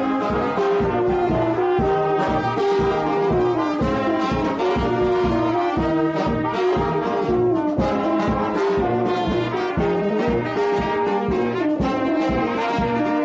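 Brass band playing a melody on trumpets and trombones over a steady beat.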